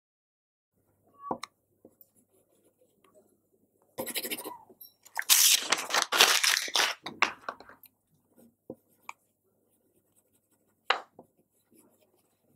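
A sheet of paper crackling as it is crumpled into a ball, loudest for about two seconds around the middle. A light knock about a second in and another near the end.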